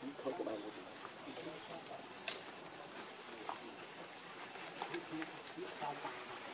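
Insects droning steadily in a single high-pitched band, with a few faint scattered clicks beneath.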